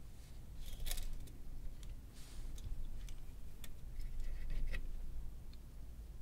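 Scattered small clicks and short scrapes of plastic and metal parts as a CD/DVD player's loader mechanism is taken apart by hand: the optical pickup sled and its metal guide shaft being worked loose.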